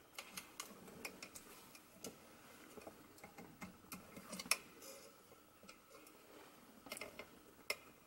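Faint, irregular plastic clicks and taps as small 3D-printed cable clips are pushed onto a swing-arm lamp's arm and a microphone cable is pressed into them. The sharpest click comes about halfway through.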